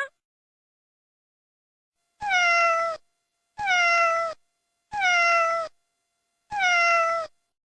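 Domestic cat meowing four times at even intervals, each meow the same shape and dropping slightly in pitch.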